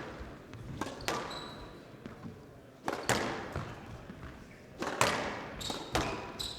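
Squash rally: the ball struck hard by the rackets and cracking off the walls, a handful of sharp, echoing hits a second or two apart, with brief squeaks of court shoes on the floor.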